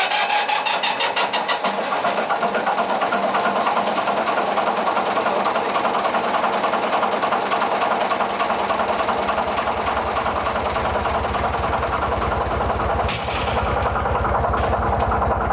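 Stork-Ricardo diesel engine of a Sik shunting locomotive starting up: it catches with a rapid even beat, then keeps running, its low pulsing growing stronger about halfway through.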